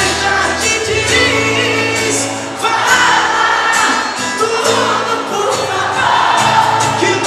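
Live sertanejo band playing, with a man singing lead over acoustic guitar and accordion, and percussion keeping a steady beat.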